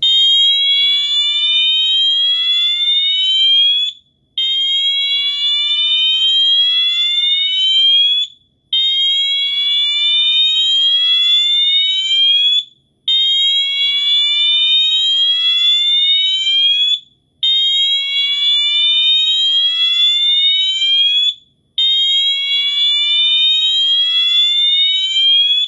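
Wheelock MT multi-tone fire alarm horn sounding its slow whoop tone. A loud electronic tone rises over about four seconds and breaks off briefly, six times over.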